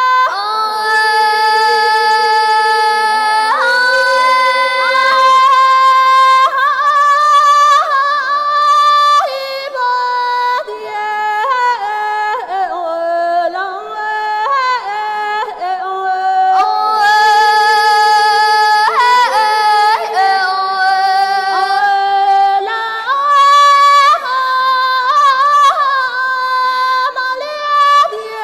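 A girl's high voice singing Tibetan opera (Ache Lhamo) solo with no instruments heard: long held notes decorated with rapid warbling ornaments, the pitch stepping up and down between phrases.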